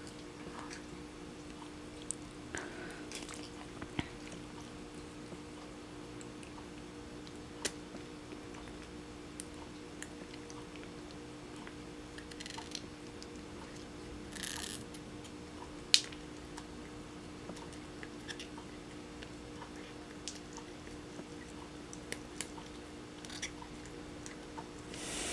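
A cat biting and chewing a hand-held treat, with scattered sharp crunches, over a steady low hum.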